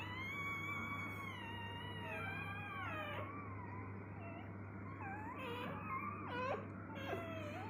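Newborn golden retriever puppies whining: one long drawn-out whine over the first three seconds, then short squeaky cries that rise and fall near the end. A low steady hum runs underneath.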